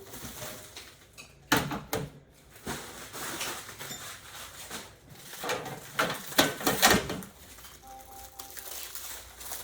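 Printer parts and their packaging being handled: irregular rustling with clicks and knocks. The loudest bursts come about a second and a half in and again around six to seven seconds in.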